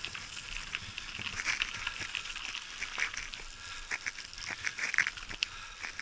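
Pedal-driven ride over bumpy grass: frequent clicks and rattles, with short squeaky, honk-like bursts from about one and a half seconds in and clustering around five seconds.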